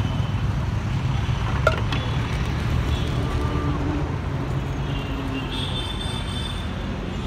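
Steady rumble of road traffic passing on a city street, with a single sharp click about a second and a half in.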